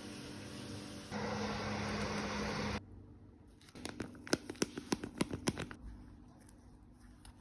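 A small electric motor runs with a steady hum, gets louder about a second in, and cuts off abruptly a little under three seconds in. About a second later comes a quick run of sharp clicks or taps lasting about two seconds.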